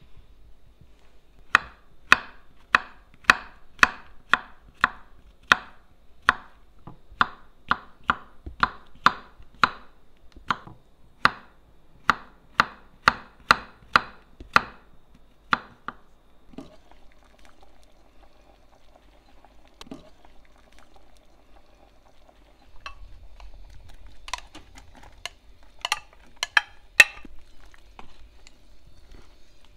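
Kitchen knife slicing button mushrooms on a wooden cutting board: a steady run of sharp cuts, about two a second, each ending in a knock on the board, which stop about halfway through. Near the end come a few scattered, sharper knocks.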